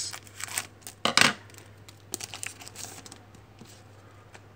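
Scissors cutting open a foil Panini Select Soccer trading-card pack, with one sharp cut or tear about a second in, followed by lighter crinkling of the foil wrapper that dies away after about three seconds.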